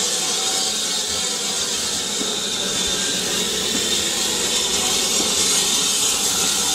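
Steam locomotive letting off steam: a steady, unbroken hiss.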